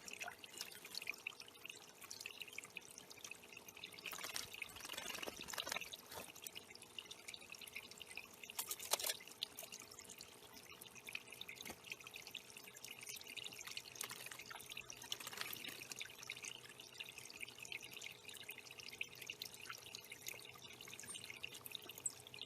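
Water trickling and dripping in a small backyard bird pond, with a few louder splashes about four and nine seconds in.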